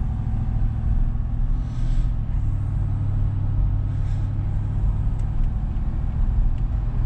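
Steady low rumble of a vehicle's engine and road noise heard from inside the cab while cruising at highway speed, with a couple of faint swishes, about two and four seconds in.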